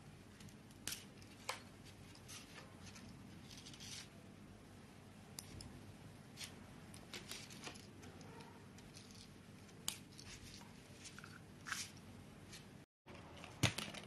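Faint, scattered clicks and scrapes of a straightened paper clip and wire being worked in the plastic push-in terminal of a lamp foot switch to release the wire. After a brief dropout near the end, a sharper cluster of clicks comes as wires are handled at the new switch interior.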